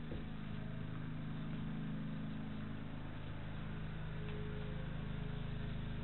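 Steady low background hum, with a faint higher steady tone joining about four seconds in.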